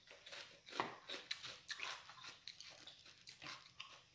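Faint eating sounds at a meal: chewing and biting, with small irregular clicks and ticks.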